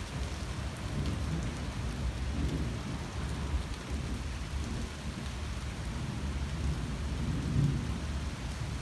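Steady rain falling on a leafy tree and pavement, with a low rumble of thunder underneath that swells briefly about seven and a half seconds in.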